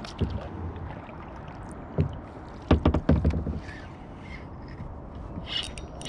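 Knocks and bumps of gear being handled in a kayak, with a cluster of them about three seconds in.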